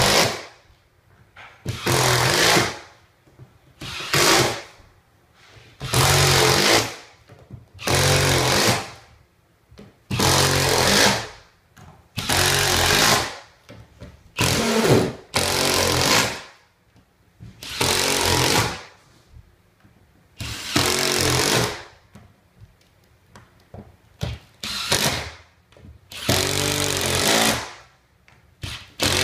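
Cordless impact driver driving screws through cement backer board into the wood subfloor, one screw after another. It makes a dozen or so rattling runs of about a second each, roughly every two seconds, with short pauses between.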